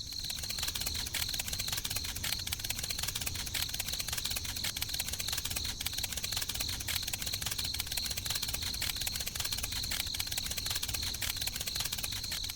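An engine running steadily with a fast, even clatter.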